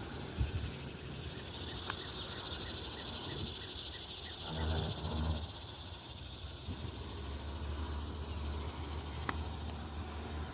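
Steady high-pitched insect chorus over outdoor ambience, with a brief low drone in the middle and a low engine-like hum building in the second half.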